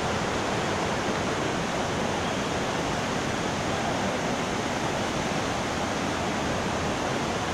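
Steady rush of fast-flowing water from the Baiguate waterfall and the turbulent river below it.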